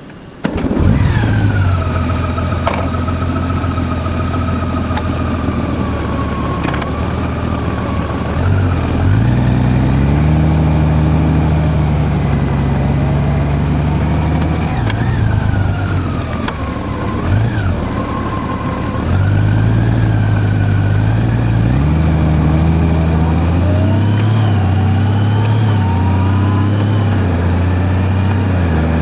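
Motor vehicle engine cutting in suddenly about half a second in, then running under way, its pitch stepping up and dropping back several times as it changes gear.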